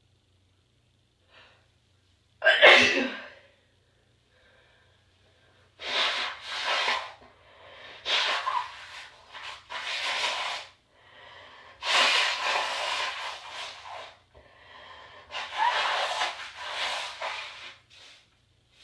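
A woman sneezes once, sharp and loud, then blows her nose hard into a handkerchief in a series of long, hissy blows with short pauses between them.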